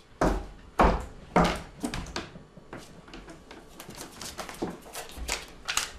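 Footsteps on a hard kitchen floor: three heavy steps about half a second apart, then lighter clicks and taps of magnets and papers being handled on a fridge door.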